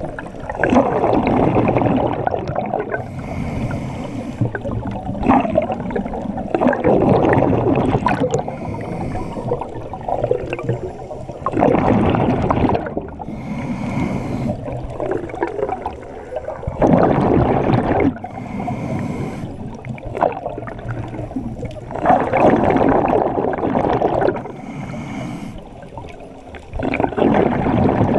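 Scuba diver breathing through a regulator underwater. Each inhale is a high hiss and each exhale is a loud burst of bubbles, at about one breath every five seconds.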